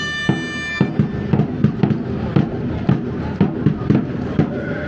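Handball being dribbled on a sports-hall floor, bouncing about three to four times a second, mixed with players' running steps and echoing in the large hall. A short high squeak at the very start, most likely a shoe on the floor.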